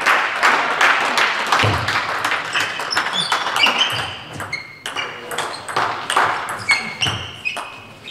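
Table tennis rally: the celluloid ball clicking rapidly off the bats and the table, with shoes squeaking on the hall floor and a couple of low thumps from the players' footwork.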